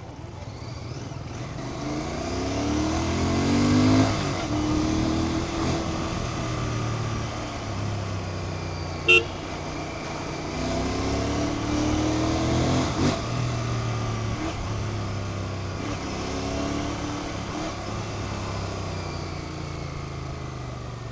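Royal Enfield Continental GT650's parallel-twin engine on its stock exhaust while riding, accelerating several times with the pitch rising and then dropping at each gear change. A short horn beep about nine seconds in.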